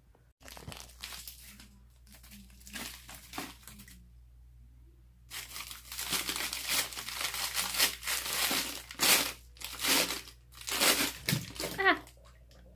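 Crinkling and crackling as a bath bomb fizzes and dissolves in bath water. The sound comes in a few short spells, then grows denser and louder for the second half.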